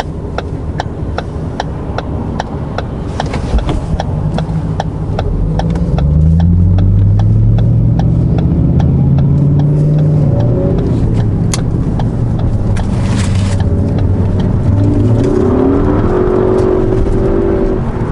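Ford Focus ST's turbocharged four-cylinder engine and tyres on the move, the engine pulling harder and louder from about six seconds in, with its note rising again near the end. A steady ticking, about three a second, runs until about eleven seconds in. No clunk or rattle comes from the rear suspension: the new sway bar and end links have made the car quiet again.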